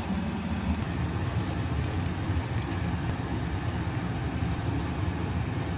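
Steady low machine hum, even and unchanging, with a few faint light clicks over it.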